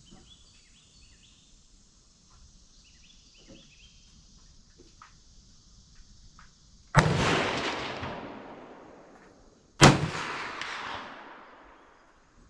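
Two .357 Magnum gunshots about three seconds apart, each trailing off in a long fading echo.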